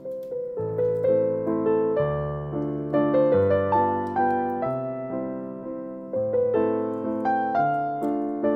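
Background music: a piano piece, a melody of struck notes that fade, over low bass notes that change every second or so.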